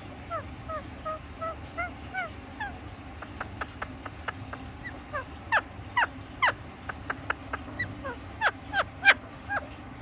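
Pet green parakeet calling: a run of soft, quick chirps, about three a second, then louder, sharper squawks, the loudest near the end.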